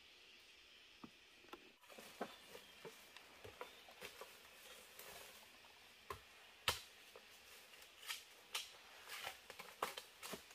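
Irregular light clicks and taps over a faint hiss, a few a second at most, with one sharper knock about two-thirds of the way through.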